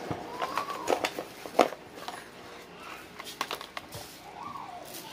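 Plastic accessory bags crinkling and a cardboard camera box being handled, with sharp clicks and taps in two clusters, the loudest about a second and a half in. A faint rising-and-falling tone sounds twice in the background, once early and once near the end.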